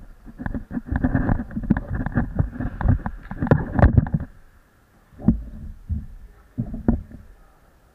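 Handling noise of an action camera in its housing as it is moved and set against the goal frame. Dense rubbing and knocking for about four seconds, then a few separate knocks.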